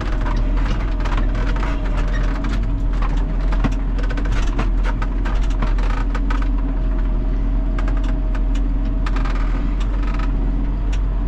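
John Deere 6930 tractor's six-cylinder diesel engine running steadily, heard from inside the cab, with frequent light clicks and rattles.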